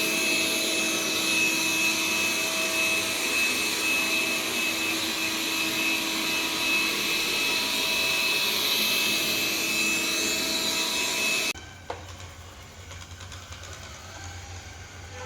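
Robot mop-vacuum running in dry mode: a steady whirring with a high, even whine, the noise it makes when used dry. About three-quarters of the way through it cuts off abruptly to a much quieter low hum.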